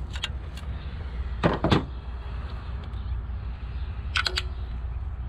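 Clicks and knocks of hard parts and tools being handled at the engine, with two loud knocks about a second and a half in and another short cluster of clicks near the end, over a steady low rumble.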